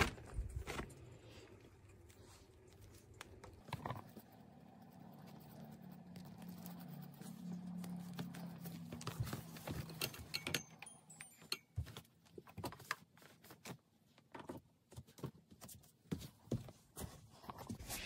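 Scattered light clicks, taps and rustles from handling a portable clothes dryer's nylon cover and base while its power cord is plugged in. A faint low hum swells and fades in the middle.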